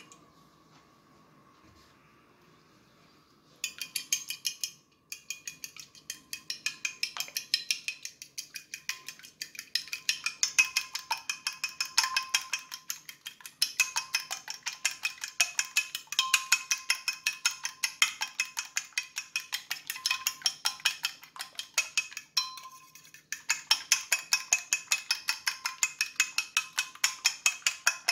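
Metal fork beating eggs and milk on a ceramic plate: fast rhythmic clicking of the tines against the plate, starting a few seconds in, with a short pause near the end.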